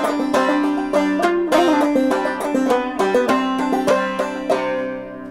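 Flinthill open-back banjo with a Renaissance head, played clawhammer style: a quick run of plucked notes in a minor Swedish polska, the last notes ringing and fading near the end.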